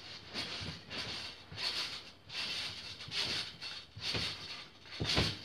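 A person bouncing on a netted garden trampoline: the mat and springs give a rhythmic thump and creak with each bounce, about once a second.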